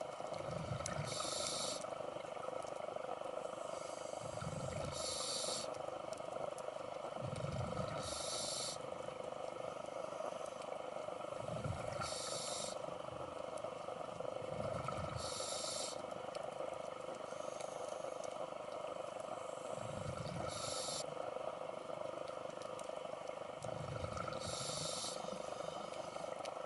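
Scuba diver breathing through a regulator underwater in a slow, even rhythm, about one breath every three to four seconds: each breath a low rumble of bubbles paired with a short hiss from the regulator. A steady hum runs underneath.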